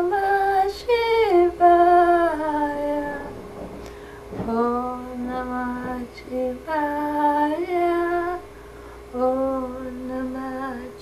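A woman chanting unaccompanied in long, held, gently sliding notes, sung in slow phrases with short breaths between them, over a faint steady tone.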